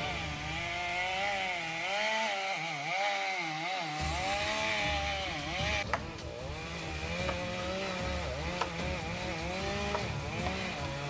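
Chainsaw running and cutting, its whine rising and falling with the load. There is a sharp click about six seconds in.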